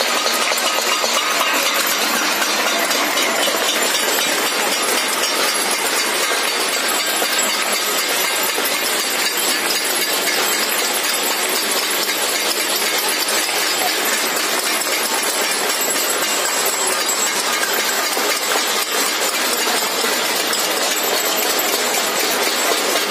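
Continuous din of many residents clapping and clanging metal plates and utensils across the neighbourhood, a dense, steady clatter with no letup: the Janta curfew clapping salute.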